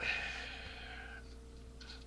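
A person's sharp, hissing exhale, loudest at the start and fading over about a second, typical of breathing out against the burn of hot peppers.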